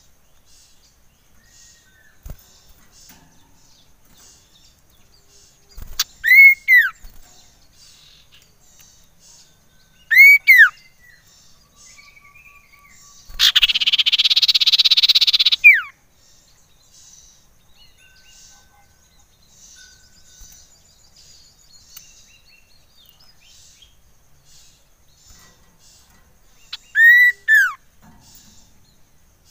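Common iora (cipoh) calling: three pairs of loud whistled notes, each arching up then down in pitch, and in the middle a harsh rasp lasting about two and a half seconds, over faint background chirping.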